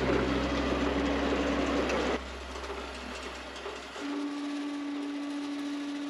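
Wood-Mizer LT40 Wide band sawmill running, a noisy mechanical din over a steady low hum. The din cuts off abruptly about two seconds in and the low hum fades away, leaving a quieter steady hum.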